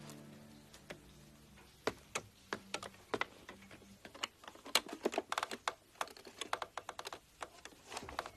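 A quick, irregular run of sharp clicks and taps in clusters, starting about two seconds in, with faint background music fading out at the start.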